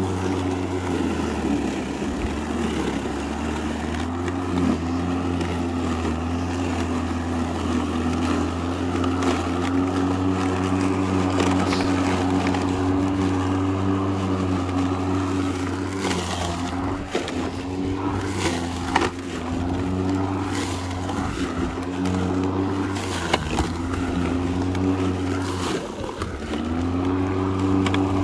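Makita DLM382 cordless lawn mower, its brushed twin-18 V (36 V) motor and blade whirring steadily while cutting long, overgrown grass. The pitch sags and recovers several times as the motor is loaded by the heavy grass and starts to struggle. A few short knocks come past the middle.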